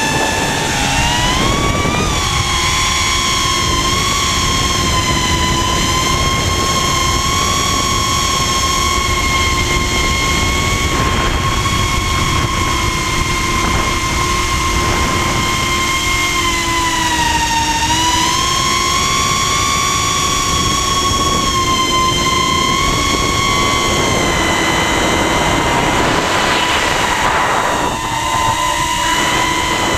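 Brushless motors and propellers of a 150mm FPV quadcopter, heard through its onboard GoPro, whining steadily with a pitch that shifts with throttle. The pitch dips about 17 seconds in and climbs again about a second later, over a constant rush of wind.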